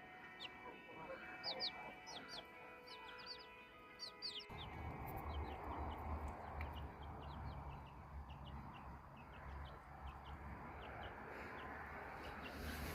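Young chicks peeping: many short, high, downward cheeps, coming thickly in the first few seconds and thinning later. About four and a half seconds in, a steady low rumble of background noise sets in beneath them.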